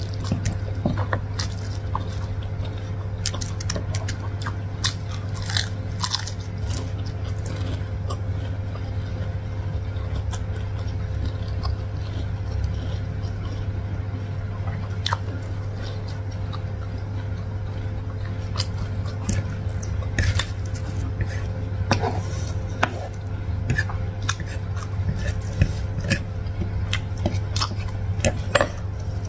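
Close-miked eating sounds: chewing instant carbonara noodles, with wet mouth clicks and smacks scattered throughout, over a steady low hum.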